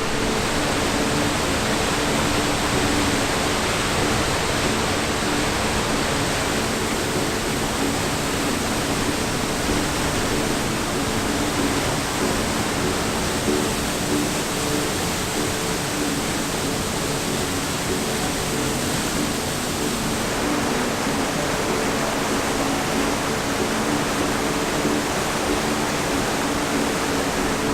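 Waterfall crashing into its plunge pool: a steady, even rushing roar that does not change.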